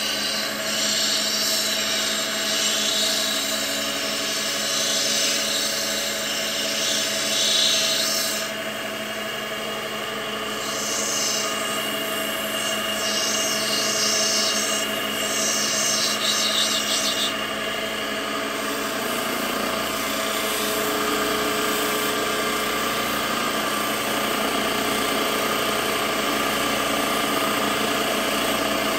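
Multi-wheel lapidary grinding machine running steadily with water spraying its wheels, as a turquoise nugget is ground on a spinning wheel to open a face. The hiss of stone on the wheel comes and goes and is loudest over the first half, then the machine runs on more evenly.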